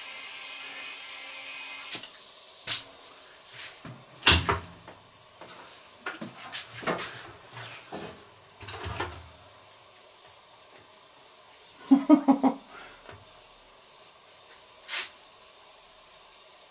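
Compressed air hissing through a handheld tyre inflator into a small trailer tyre after a glued repair, cut off with a click about two seconds in. Then knocks and thumps as the wheel is lifted and turned, with a short rattling clatter later.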